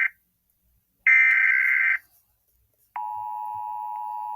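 Emergency Alert System header tones: the tail of one SAME digital data burst, then another full burst of rapid warbling data tones about a second long. After a short gap, about three seconds in, the steady two-tone EAS attention signal starts, marking an incoming weather warning.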